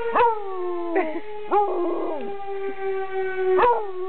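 A young basset hound howling in short rising-then-falling howls, three or four times, in answer to a fire siren. Under the howls the siren holds one steady tone that slowly drops in pitch.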